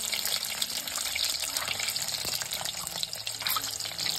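Water running with a steady splashing hiss.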